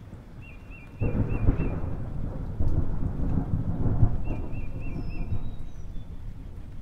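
A metal spoon stirring wet chopped salsa on a ceramic plate: a wet, crackling squelch with small scrapes and clicks. It starts suddenly about a second in and fades out after about five seconds.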